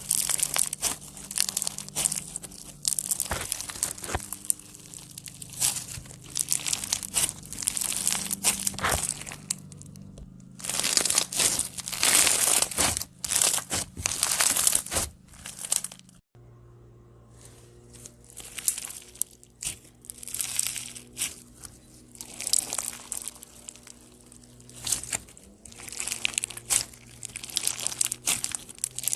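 Slime being squeezed, stretched and kneaded by hand, giving a dense run of crackles, pops and squelchy clicks. The crackling comes in bursts, with a short quiet break about halfway through.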